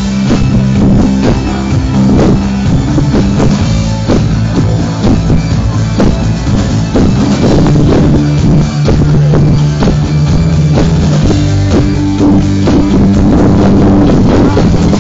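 Rock band playing live and loud: electric bass guitar holding low sustained notes, electric guitar and a drum kit keeping a steady beat.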